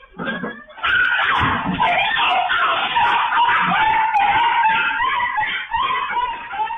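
A long, loud scream-like cry held for several seconds, its pitch wavering slightly.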